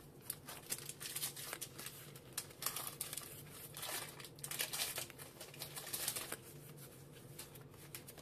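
Pokémon TCG booster pack foil crinkling and trading cards being handled and flipped through by hand, an irregular run of soft crackles and flicks.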